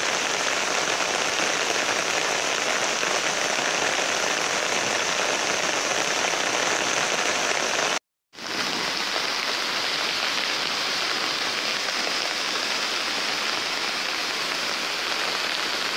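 Steady hiss of heavy rain falling on wet ground, mixed with fast muddy floodwater rushing through a channel. The sound cuts out completely for a split second about halfway through.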